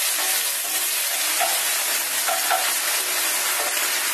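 Cherry tomatoes, shallots and garlic sizzling steadily in hot oil in an enamelled cast-iron skillet while being stirred with a wooden spoon, with a few short knocks and scrapes.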